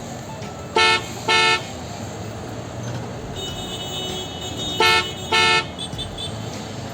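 Car horn honking in two quick double beeps, about four seconds apart, over steady background street noise.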